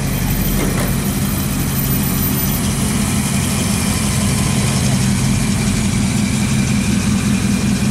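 Early-1960s Chevrolet Impala convertible's engine idling with a steady low note as the car rolls slowly past.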